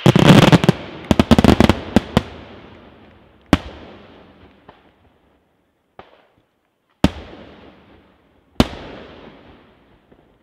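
Daytime fireworks bursting: a rapid volley of loud bangs in the first two seconds, then four single bangs at intervals of about one to one and a half seconds, one of them faint. Each bang trails off in a fading tail.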